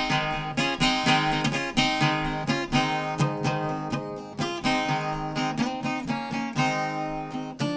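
Background music: a steady run of plucked and strummed notes.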